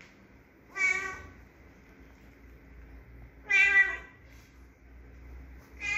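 A cat meowing: two clear meows about half a second each, roughly three seconds apart, and a third starting near the end.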